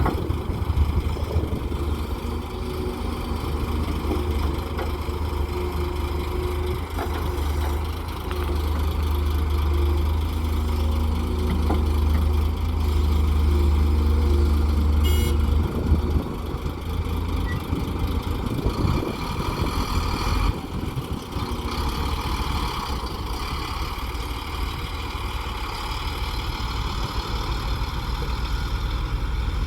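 Heavy diesel earthmoving machinery running with a steady deep engine drone while an excavator loads mud into a dump truck. There is a single sharp knock about halfway through, and more working noise in the second half.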